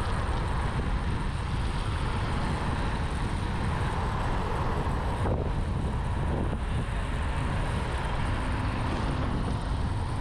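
Steady wind rush on the microphone and road noise from a Blade GT electric scooter riding along a paved road at speed.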